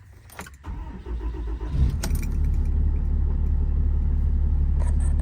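Cummins 6.7-litre inline-six turbo-diesel in a Ram 5500 being started: the starter cranks for about a second, the engine catches about two seconds in and settles into a steady idle.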